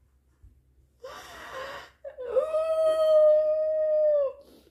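A woman's gasp, then a long, steady, high-pitched squeal of excitement held for about two seconds.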